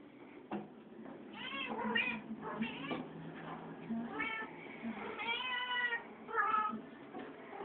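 Domestic cats meowing repeatedly, about six rising-and-falling calls, one of them drawn out for nearly a second about five seconds in.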